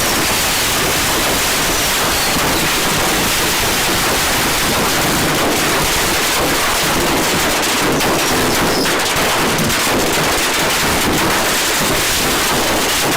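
Fireworks and firecrackers going off in a room, a dense, unbroken barrage of rapid crackling pops.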